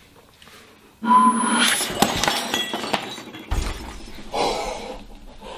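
Glass bottle shattering about a second in, followed by glass pieces clinking and skittering on the tabletop.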